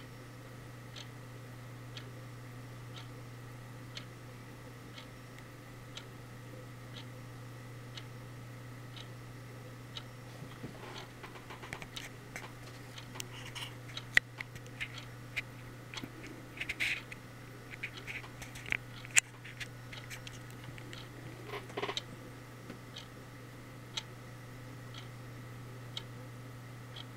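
Faint, even ticking about once a second over a steady low hum. Through the middle of the stretch, irregular sharp clicks and scratches come in; they thin out again after about 22 seconds.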